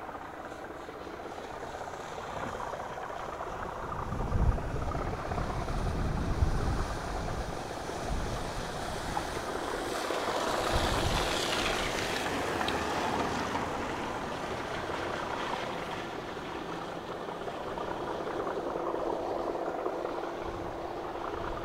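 Distant Class 37 diesel locomotive on a railhead treatment train, its steady engine drone growing clearer near the end as it approaches. Wind gusts rumble on the microphone twice.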